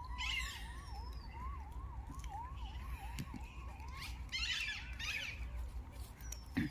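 Faint electronic siren wailing in a quick up-and-down yelp, about three to four sweeps a second, that stops about four seconds in. A couple of short high calls follow shortly after.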